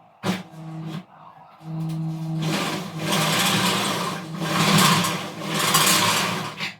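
Electric drill: a short burst of the motor just after the start, then it spins up again about a second and a half in and bores into the steel with a loud, grinding hiss, stopping just before the end.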